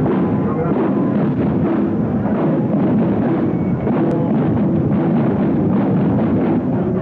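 A school marching drum-and-bugle band (banda de guerra) playing, its drums beating steadily throughout.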